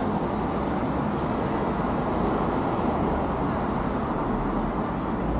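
Steady city street ambience: a constant wash of road traffic noise.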